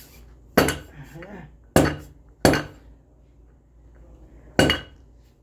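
Hammer blows on metal during treadmill roller bearing work: four sharp strikes, each with a brief metallic ring, unevenly spaced.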